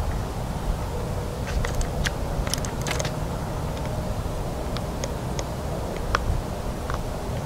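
Low rumble of wind on the microphone, with scattered light clicks and ticks, clustered about a second and a half to three seconds in and again around five to seven seconds in.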